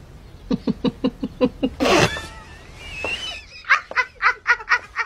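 Hysterical laughter: a run of rapid ha-ha-ha bursts, a loud outburst about two seconds in followed by a high wheezing squeal, then another run of quick ha-ha bursts.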